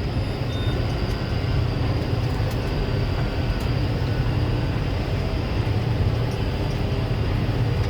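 Combine harvester running steadily while harvesting: a constant low drone of engine and machinery.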